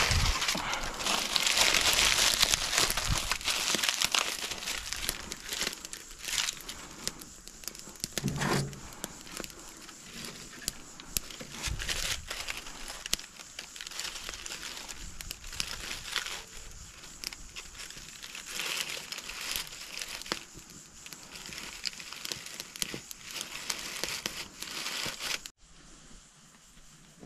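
Dry leaves crumpled and broken up by hand, loudest in the first few seconds, then twigs and leaves crackling and snapping in a small wood fire. The sound drops suddenly to a quieter background near the end.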